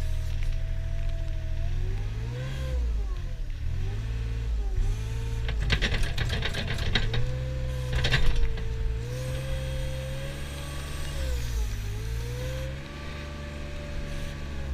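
Mustang compact shovel loader's diesel engine working under load, its speed rising and falling, with a hydraulic whine that glides up and down as the boom and bucket move. A burst of rattling clatter comes about halfway through.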